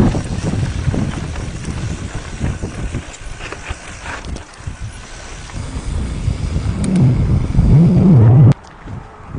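Mountain bike riding over rough trail, heard from a phone mounted on the bike: wind buffeting the microphone with knocks and rattles from the bike. The buffeting swells toward the end and then cuts off suddenly.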